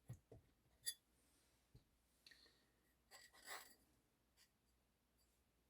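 Near silence, with a few faint clicks and a brief soft rub about three seconds in, from handling the parts of a disassembled folding knife.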